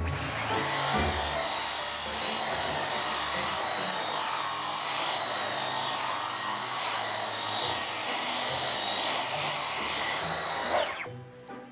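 Dyson V15 Detect cordless stick vacuum running on a mattress: a steady motor whine with a hiss of airflow. Near the end it is switched off, and the whine falls away and stops.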